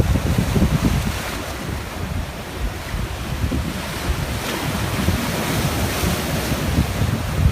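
Strong wind buffeting the microphone with a low, irregular rumble over the steady rush of sea waves breaking on the shore.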